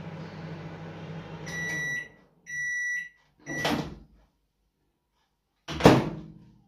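Microwave oven running with a steady low hum that stops about two seconds in, followed by its end-of-cycle beeps: two high beeps and a third cut short as the door is clicked open. Near the end comes a loud knock as the door is shut.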